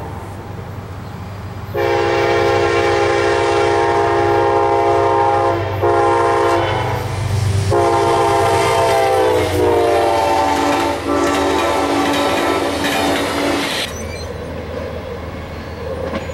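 Amtrak passenger train's GE Genesis diesel locomotive sounding its horn as it approaches and passes, in three blasts with the last one longest. The horn's notes drop in pitch as the engine goes by. After the horn stops, the rumble and clatter of the passing passenger cars continue.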